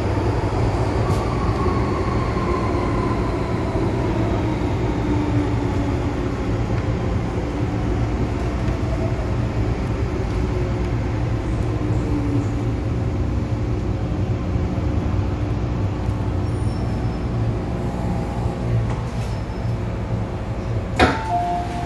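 MTR M-Train running on the Island Line and slowing for a station: steady low rumble with a motor whine that falls in pitch as the train brakes. A sharp click just before the end.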